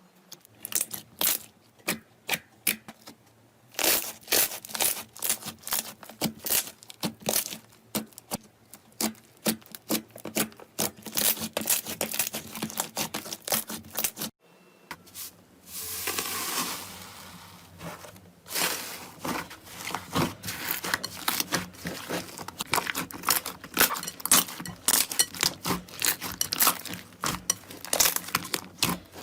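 Slime being squeezed and worked by hand close to the microphone, giving dense crackling and popping clicks. The sound breaks off about fourteen seconds in, turns into a short, smoother hiss, and then the crackling picks up again.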